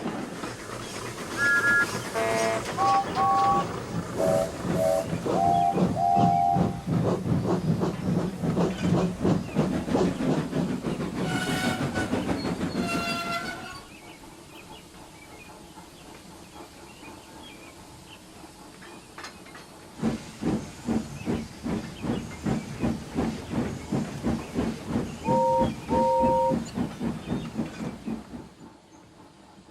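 Steam locomotive puffing with a fast, even exhaust beat, with several whistle blasts near the start and again about twelve seconds in. Around halfway the puffing drops away to a quiet background for some seconds, then resumes with two short whistle toots near the end.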